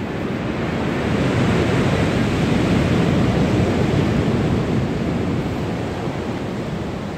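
Surf on a beach mixed with wind buffeting the microphone, a steady rush that swells over the first few seconds and slowly fades toward the end.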